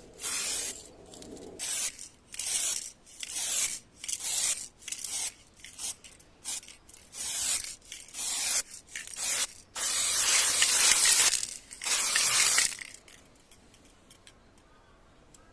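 Aerosol spray can spraying in many short bursts of hiss, then two longer passes, stopping about 13 seconds in.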